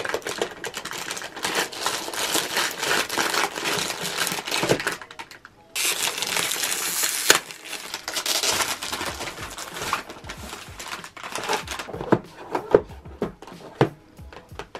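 Crinkling and rustling of a foil mystery-wand wrapper being pulled open by hand, loudest about six to seven seconds in and ending in a sharp snap. Softer rustles and a few light knocks of the cardboard wand box on the table follow near the end.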